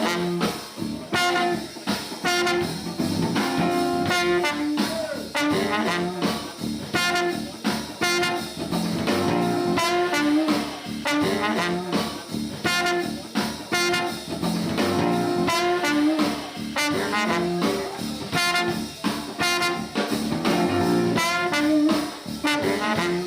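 Jazz band playing, with brass and saxophone over a steady beat.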